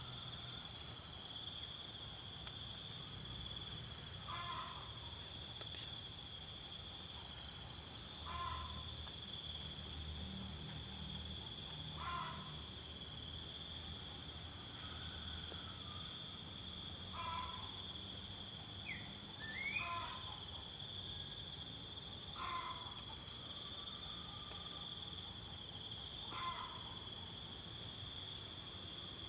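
A bird, the one known in Java as 'burung jitu', giving a short call about every four seconds, about eight times, with one call near the middle sliding upward. Behind it, crickets or other insects keep up a steady high buzzing chorus.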